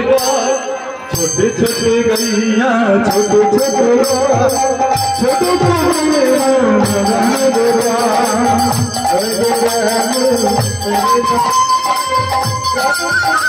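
Bengali devotional kirtan music: a drum and small hand cymbals keep the beat under a held, wavering melody line. The cymbal strikes come about twice a second at first and quicken to about four a second roughly five seconds in.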